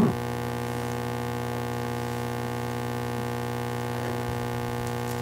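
Steady electrical mains hum, a buzz of many even tones held without change.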